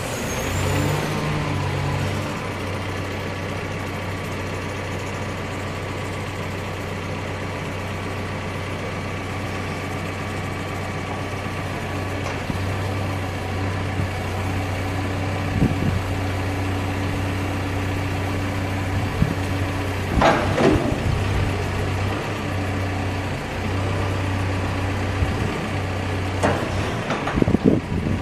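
Caterpillar backhoe loader's diesel engine running steadily while its hydraulic controls are cycled during start-up procedures. Scattered clunks and knocks from the working attachments come through, bunched about twenty seconds in and again near the end.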